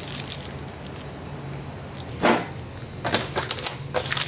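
A single thud about two seconds in, then a run of light clicks and crinkles as snack packages are handled in a plastic shopping basket, over a steady low hum.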